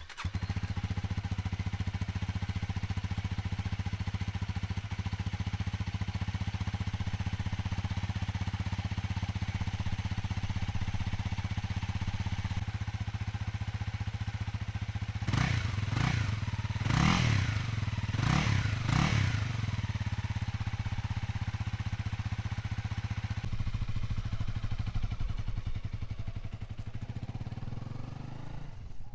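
2023 Honda Rebel 300's single-cylinder engine on its stock muffler, started cold and idling steadily. About halfway through it is blipped in a quick cluster of short revs, then it settles back to idle.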